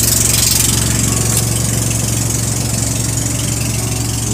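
An engine idling steadily, making a constant low drone.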